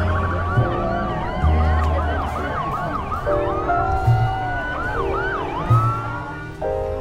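Music playing, with a rapid string of quick rising-and-falling siren-like whoops at several pitches over it. The whoops die away about five and a half seconds in, leaving the music.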